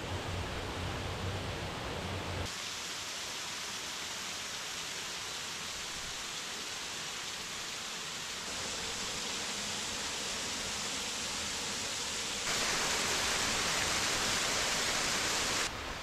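Steady rush of a small waterfall spilling down a rock face, in a few short cuts. The level jumps at each cut and is loudest near the end.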